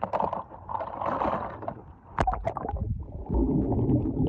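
Lake water splashing and sloshing around the camera, with several sharp splashes about two seconds in, then a muffled underwater gurgling rumble from about three seconds in as the camera goes below the surface.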